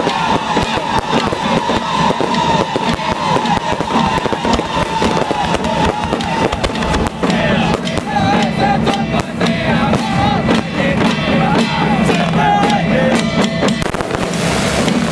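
Aerial fireworks popping and crackling over loud music with a melody, the pops coming thicker near the end.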